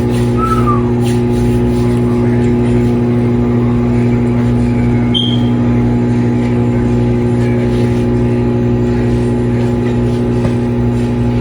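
Galanz 3-in-1 microwave air fryer oven running while it cooks: a steady electrical hum with its fan, unchanging throughout.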